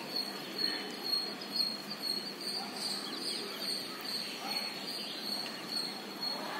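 Birds of a large flock calling over one another in scattered short calls, over a steady high-pitched insect-like buzz.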